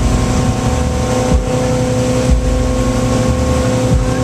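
Motorboat engine running steadily at one pitch while towing at speed, over the rush of wind and water, with irregular low thumps.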